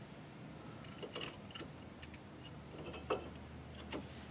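A few light, scattered metallic clicks and taps as new brake pads are pushed into place in a front brake caliper bracket.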